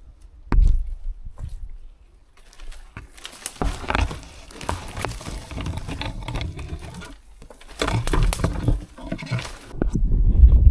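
Irregular bursts of rustling and rumbling noise on the microphone, in several surges with a few sharp clicks, the loudest near the end.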